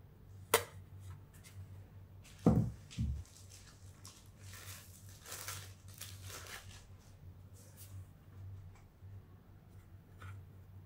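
Graphite bipolar plates handled with cotton gloves: a sharp click, then two low thuds as plates are set down, followed by a few seconds of plates sliding and rustling against each other and the gloves, with a few light clicks near the end. A faint steady hum lies underneath.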